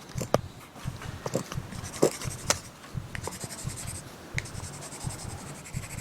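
Pen writing on paper: quick, irregular scratching strokes with small sharp ticks.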